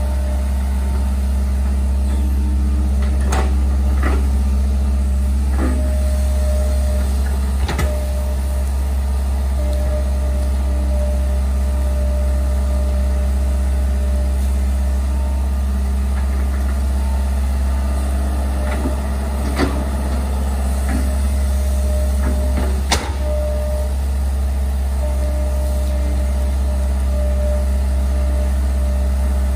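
Tracked hydraulic excavator's diesel engine running steadily under working load while it digs a ditch. A hydraulic whine rises and fades as the boom and bucket move, and the steel bucket gives a handful of sharp knocks against the soil.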